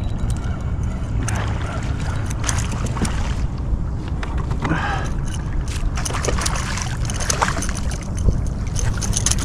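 Wind rumbling on the microphone, with water lapping and splashing around a kayak as a hooked speckled trout thrashes at the surface beside it.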